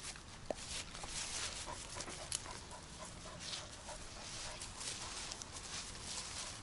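Grass and leafy bushes rustling with irregular footsteps as a dog on a leash pushes through the undergrowth with a person following close behind.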